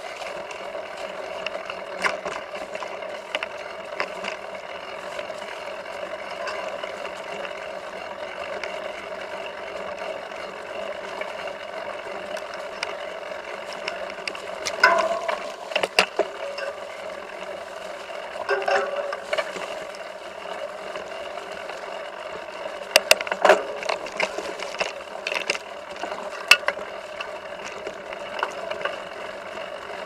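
Mountain bike rolling over a rough, leaf-covered dirt trail: a steady rattle and clatter of the bike's chain and frame, with sharp clacks as it jolts over bumps, loudest in bursts about halfway through and again near the end.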